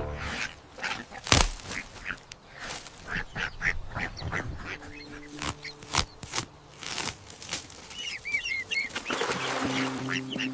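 Ducks quacking and ducklings peeping, with a run of high peeps about eight seconds in, amid scattered sharp clicks and rustles. Soft background music.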